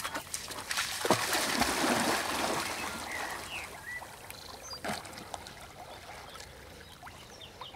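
A large dog wading into a pond and swimming, with heavy splashing about a second in as it enters the water, then quieter paddling and lapping water as it swims out.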